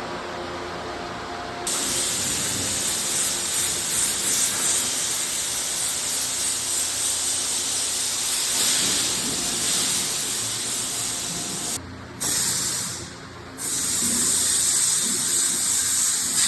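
A high-pressure spray hissing steadily. It starts abruptly a couple of seconds in and cuts off briefly twice near the end before starting again.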